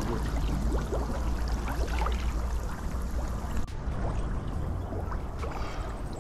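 Pond water sloshing and splashing lightly around people wading chest-deep, over a steady low rumble.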